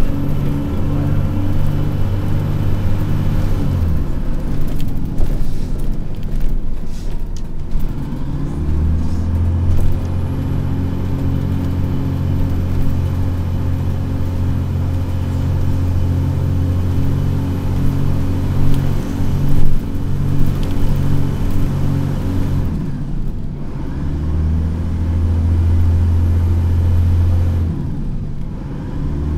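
Dennis Trident double-decker bus's diesel engine working hard under load, heard from on board as a loud, low, steady drone with a regular throb. It drops away about four seconds in, picks up again around nine seconds, eases off again after about twenty-two seconds, then works hard once more before fading near the end.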